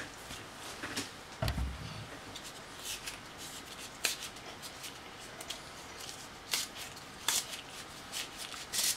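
Scattered light clicks and rustles of small objects being handled, with a soft low thump about one and a half seconds in.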